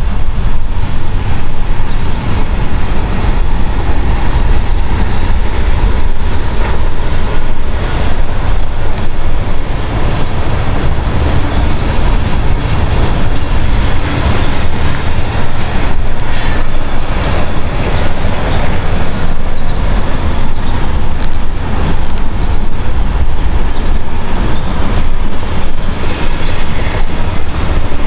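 Wind buffeting the microphone: a loud, constant low rumble with a rushing hiss over it.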